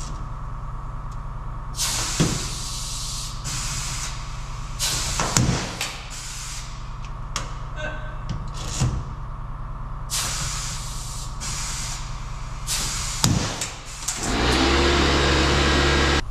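Pneumatic Huck gun setting lockbolts: several short hisses of compressed air with sharp cracks, then a longer, louder steady run of the tool near the end. A diesel truck engine idles steadily underneath.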